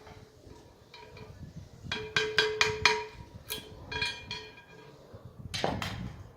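A series of metallic taps and clinks, each leaving a short ringing tone. There is a quick cluster about two seconds in, a few more about four seconds in, and a duller knock near the end.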